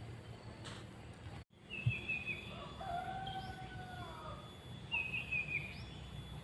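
Wild birds calling: a few short, high chirps and a longer arching call, over a steady low outdoor background hum. The sound drops out briefly about one and a half seconds in.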